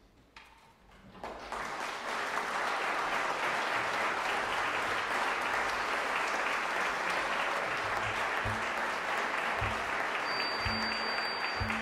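Concert audience applauding: the clapping breaks out about a second in, after the last chord has died away, and builds within a second into steady, full applause.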